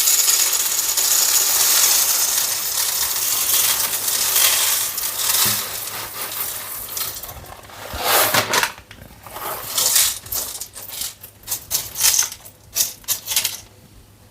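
Whole coffee beans poured into the bean hopper of a De'Longhi Magnifica Plus coffee machine: a steady pouring rattle for about the first seven seconds, then scattered clicks and short rattles as the last beans drop in and settle.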